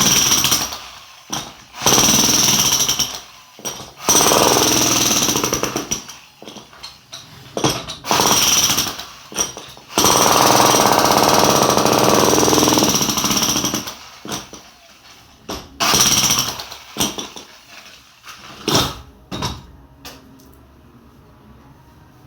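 Jackhammer chipping into a concrete wall to cut a groove for electrical wiring. It hammers in bursts of one to three seconds with short pauses and brief taps between them; the longest burst comes about halfway through, and the hammering stops shortly before the end.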